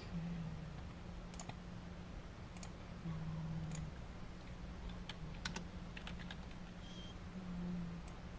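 Computer keyboard keys clicking now and then in short, irregular taps, over a low steady hum.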